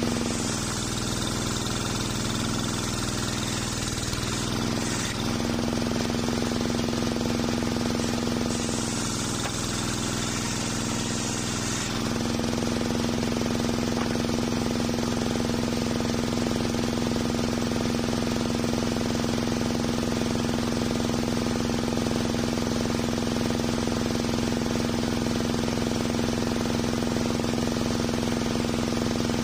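Engine-driven homemade circular sawmill ripping a board of waru wood: the noise of the blade cutting runs for about the first five seconds, and again from about eight to twelve seconds, over the steady drone of the engine. After that the blade spins free with nothing in it, and only the steady running is left.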